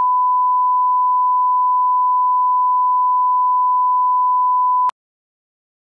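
Bars-and-tone reference test tone: one loud, steady, pure beep at a single fixed pitch, which cuts off abruptly near the end.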